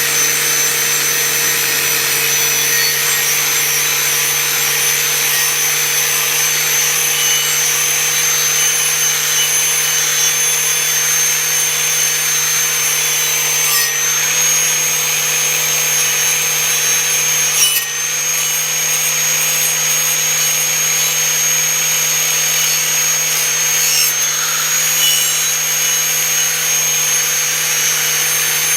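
Angle grinder running steadily against a rusty steel machete blade, grinding off the rust, with a continuous motor whine. Its pitch steps up slightly about 14 seconds in and dips briefly near 18 seconds as the load on the disc changes.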